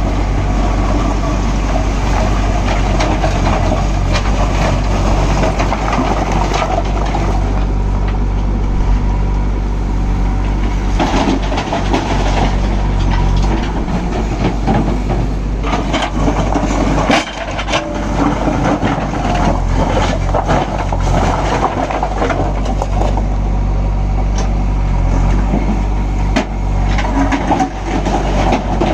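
Diesel engine of a JCB backhoe loader running steadily under work, with irregular clattering knocks of stone being scooped and tipped into a lorry, busiest in the middle stretch.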